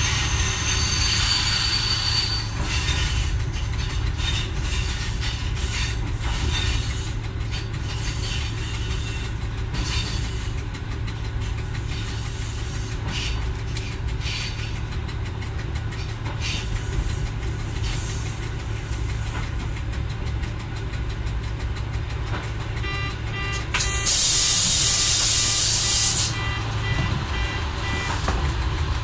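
Y1 railcar running slowly, heard from the driver's cab: a steady low engine hum with scattered clicks from the wheels on the rails. Near the end a rapidly repeating tone sounds for a few seconds, and in the middle of it a loud hiss lasts about two seconds.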